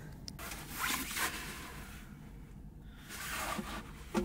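Faint rustling and scraping with a couple of soft swishes: clothing and hands moving while jumper cables are being fitted to a battery. A short vocal sound comes right at the end.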